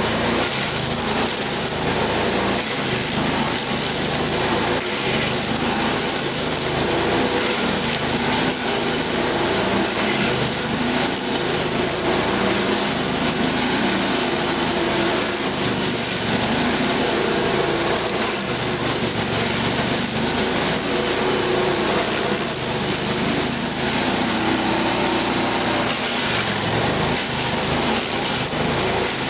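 LASKI F500H stump grinder running steadily under load, its cutter wheel grinding into an ash stump and throwing out wood chips.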